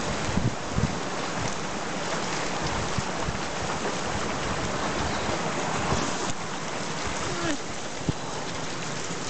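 Shallow stony river running, a steady rushing babble of water, with a few short low knocks scattered through it.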